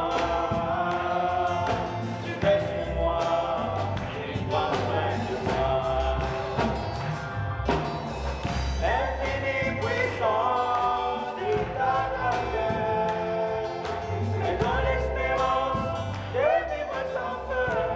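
Live Congolese gospel song: several voices sing together in harmony over a band with a strong bass line and drums.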